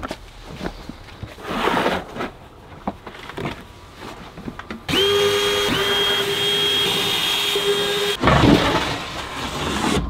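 Cordless drill running at a steady speed for about three seconds from about halfway through, with a short break just after it starts. Before it come thumps and rustling as toolboxes and gear are moved.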